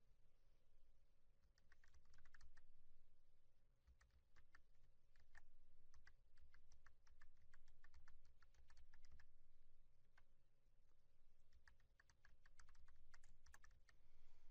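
Faint computer keyboard typing: runs of quick keystrokes, broken by two short pauses.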